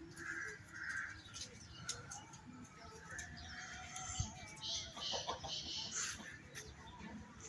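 Yard birds chirping and calling, fairly quietly.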